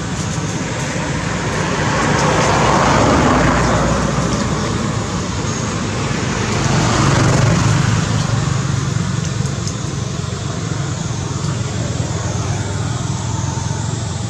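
Road traffic: a steady rush of passing vehicles that swells and fades twice, about three and seven seconds in.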